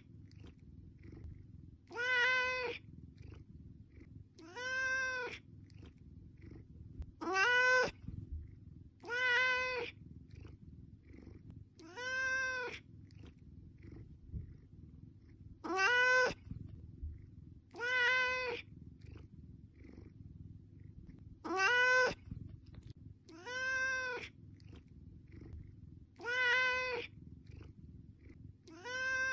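A cat meowing again and again, one drawn-out meow about every two to three seconds, about eleven in all: a cat begging for food.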